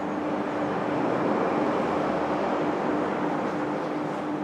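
Steady rushing background noise with a constant low hum and no distinct events.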